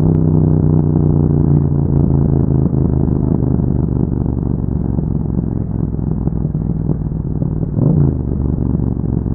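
2021 Yamaha MT-07's 689 cc crossplane parallel-twin engine running through an Akrapovic exhaust with dB killer, holding a low, steady engine speed. About eight seconds in, the revs briefly rise and drop back.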